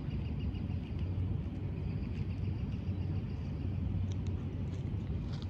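Steady low rumble of distant vehicles, with a faint, rapid high chirping in the first few seconds.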